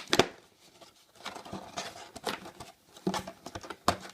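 Trading card packs being handled by hand: irregular rustling and crinkling of the wrappers with light taps and clicks.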